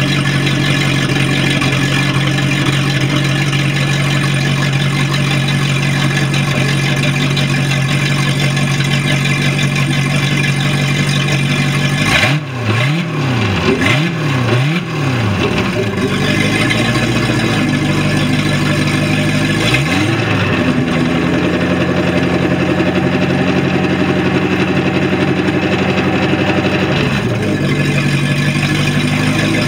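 Boat's inboard engine on a MerCruiser Bravo sterndrive, run on the trailer with a hose supplying cooling water, on a test run after a new water pump impeller and gimbal bell housing. It idles steadily, is revved up and down several times about twelve seconds in, is held at a raised speed for several seconds, then drops back to idle near the end.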